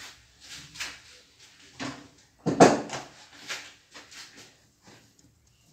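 Plastic cling film crinkling and rustling as it is handled in short bursts, with one louder knock about two and a half seconds in.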